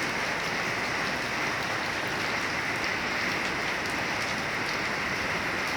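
Heavy rain falling steadily, an even wash of noise with faint scattered drop ticks.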